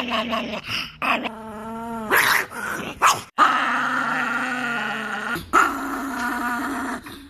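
Chihuahua growling and snarling continuously, with several abrupt breaks where one short clip cuts to the next.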